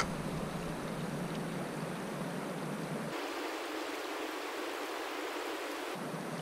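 Steady, even rush of a shallow creek's flowing water. A single sharp click comes right at the start, and the low rumble drops out for about three seconds in the middle.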